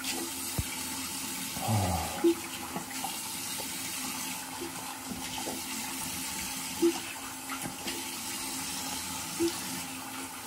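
Tap water running steadily into a bathroom sink while the face is rinsed, a constant rush with a few short blips on top.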